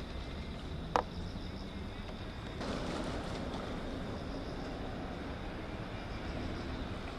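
Outdoor riverside ambience: a steady low rumble with a thin, pulsing high insect chirring over it. A single sharp click sounds about a second in, and from about two and a half seconds a rushing noise swells up and stays.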